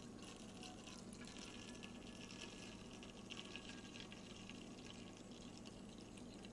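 Liquid lamp fuel poured from a bottle into the fuel tank of a hurricane lantern: a faint, steady trickle of liquid filling the tank, easing off near the end.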